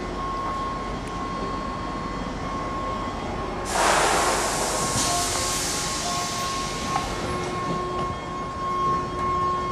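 JR 211 series train's air-operated doors closing: a sudden loud hiss of air about four seconds in, fading over a couple of seconds, over a steady high whine.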